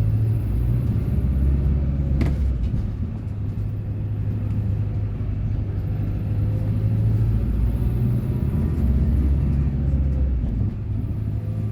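Steady low rumble of a motor vehicle on the road, with a single sharp click about two seconds in.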